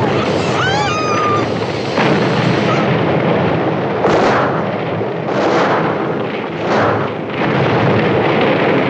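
Gasoline fire and explosions: a heavy, continuous rumble with a sharp blast about two seconds in and further swelling blasts about four, five and a half and seven seconds in. Shrieking gull cries sound over the first second and a half.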